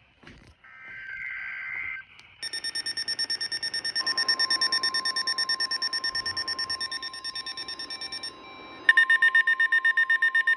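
Weather radios going off for a severe thunderstorm warning. A brief screech of alert data comes about a second in, then a rapid electronic beeping alarm of about six beeps a second starts. The steady 1050 Hz NOAA Weather Radio warning tone sounds under the beeping from about four seconds in, and near the end a second, louder beeping alarm joins.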